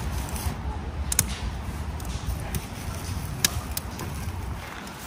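Campfire of resinous kindling just catching: a few sharp crackles and pops, over a steady low rumble.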